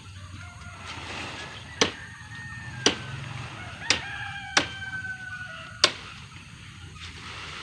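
A rooster crowing, with one long, slightly falling crow about four seconds in and a fainter one before it. Five sharp knocks, roughly a second apart, are the loudest sounds.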